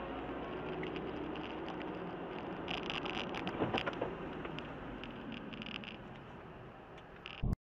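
Road and engine noise inside a moving car, as picked up by a dashcam, with a few sharp clicks about three and a half seconds in. The sound cuts off abruptly near the end.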